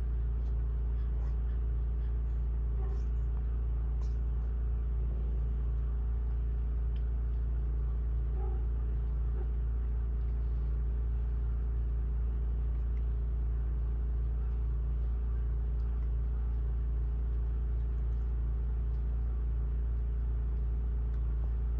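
Steady low machine hum at an even level throughout, like a running appliance motor, with a faint brief sound about eight and a half seconds in.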